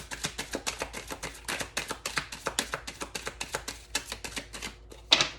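Tarot cards being shuffled by hand: a quick run of card clicks and flicks, about eight a second, ending in one louder slap about five seconds in as the cards are laid or tapped down.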